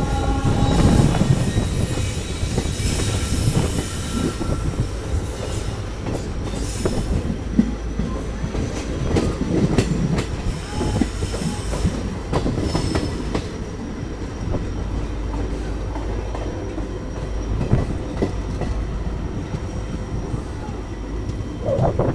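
Passenger train running on the rails, heard from aboard a coach behind a WDP4D diesel locomotive: a steady low rumble of wheels on track, with occasional knocks as the wheels cross rail joints and thin squeals now and then.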